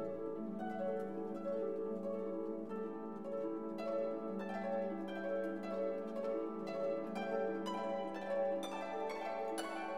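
Background instrumental music: a run of plucked notes over held lower tones, the plucked notes coming faster and brighter in the second half.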